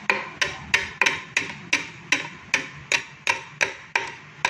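Steady, even hammer taps on metal, about three a second, each with a short metallic ring.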